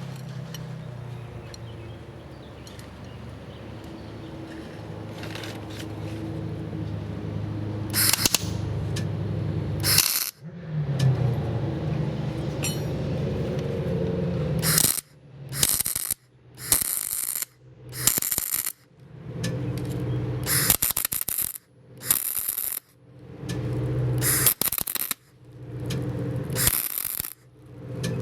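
Arc welding a nut onto a broken-off bolt so it can be turned out. Over a low steady hum there are a couple of short crackles, then from about halfway a run of crackling welding bursts about a second long, each stopping and restarting after a short gap.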